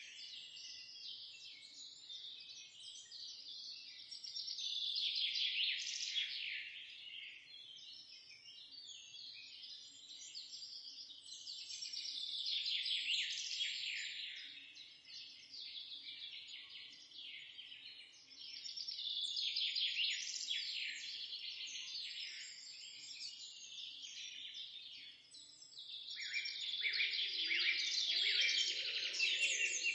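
Birdsong soundtrack: a chorus of many small birds chirping and twittering without pause, swelling louder and easing off in waves every seven seconds or so.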